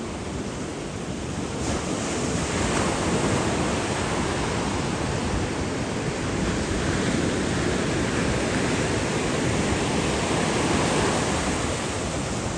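Steady rushing noise of wind and sea waves, growing louder about two seconds in.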